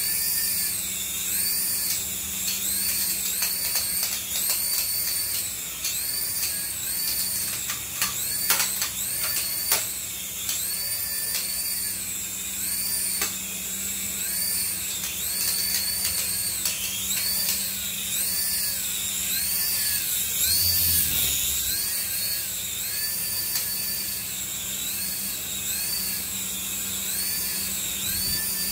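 Small toy RC helicopter's coaxial rotors and tiny electric motors whining in flight. The high whine rises and falls in pitch about once a second. A few sharp clicks sound about a third of the way in.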